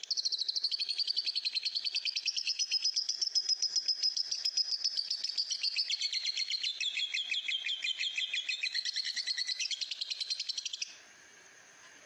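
Masked lovebird giving a long, unbroken, rapid chattering trill, the continuous song that lovebird keepers call 'ngekek'. It dips a little in pitch in the second half and stops abruptly near the end.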